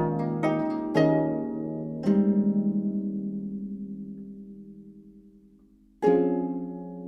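Gayageum ensemble playing: a few plucked notes in the first two seconds, then a chord at about two seconds that rings and slowly fades over some four seconds, and a fresh loud chord plucked about a second before the end.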